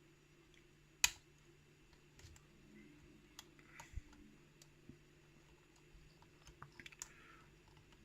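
Faint, irregular clicks and light taps of a lock pick and tension wrench working the pins of a pin-tumbler challenge lock core, with one sharper click about a second in.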